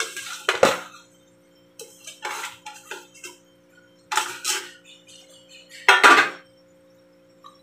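Metal serving utensil clinking and scraping against metal cookware in four short bursts as shredded chicken is spooned onto a basin of cooked noodles, over a faint steady hum.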